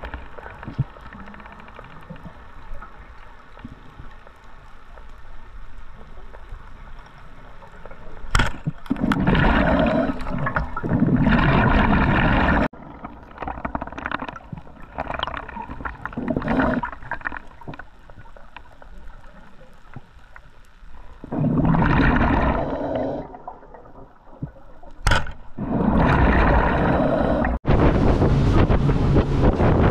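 Underwater camera sound: a muffled water rumble with several loud surges of bubbling and gurgling. Near the end it cuts to wind buffeting the microphone on a boat under way.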